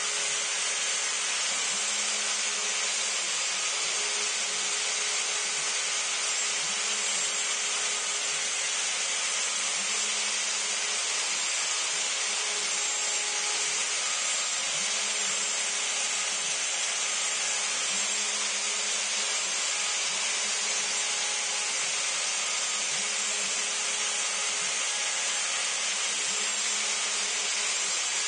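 Router on a CNC Mogul machine running steadily as its bit cuts into cedar fence board: a continuous high hiss with a lower hum that comes and goes every second or two.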